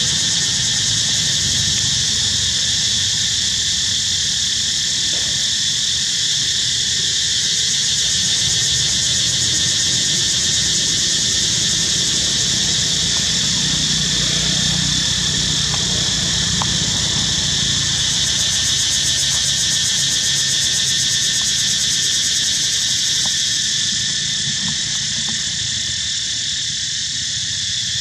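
A dense, steady chorus of insects, high-pitched and unbroken, over a low rumble.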